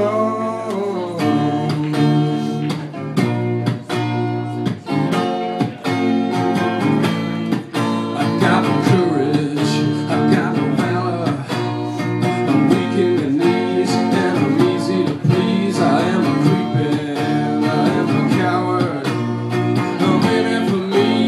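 Electric guitar strummed in a steady rhythm, with a man singing over parts of it.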